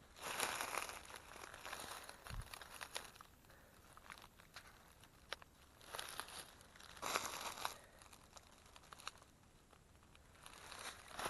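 Footsteps through dry leaf litter: irregular bursts of crunching and rustling with a few short clicks, fading between steps.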